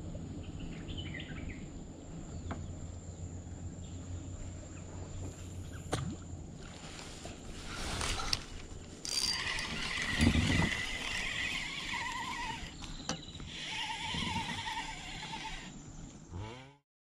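Outdoor ambience on a small boat on a river: a steady low rumble of wind on the microphone, with scattered knocks and a louder stretch of wavering whirring and hiss in the second half, fading out just before the end.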